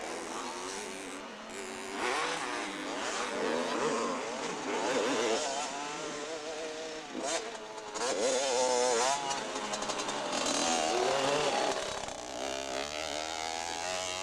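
80cc two-stroke motocross bike's engine revving up and down again and again, its pitch climbing then dropping off as the rider works the throttle over the hills.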